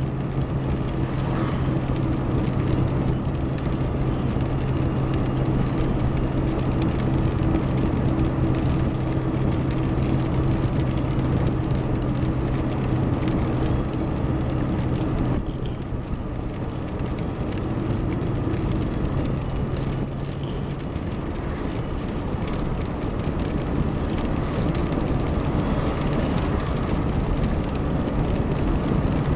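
Car driving, heard from inside the cabin: steady tyre and road noise on wet pavement, under a steady engine hum that fades about halfway through and comes back near the end.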